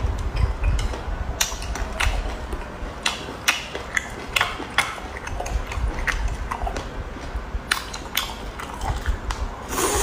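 Close-miked eating sounds: irregular sharp crunches and clicks of food being bitten and chewed, over a low rumble.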